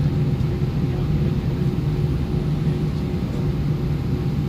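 Steady cabin noise inside an Airbus A320 holding on the taxiway before takeoff: an even low hum of the engines at idle and the cabin air, with a few constant low tones and no change in pitch.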